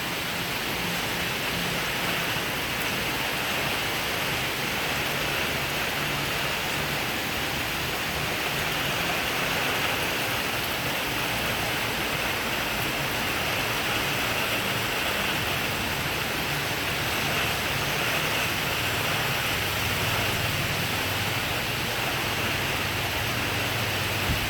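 Steady rain falling on roof tiles and leaves, an even, unbroken patter.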